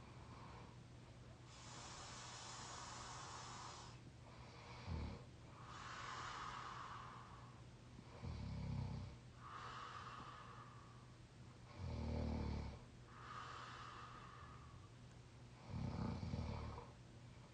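A sleeping person snoring. There are four short, low snores about every three to four seconds, each separated by a longer airy breath.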